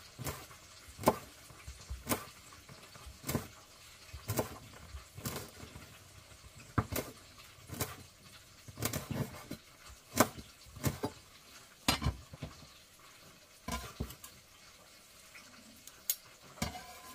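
Kitchen knife chopping fresh rosemary on a wooden cutting board: irregular sharp knocks of the blade on the board, about one or two a second.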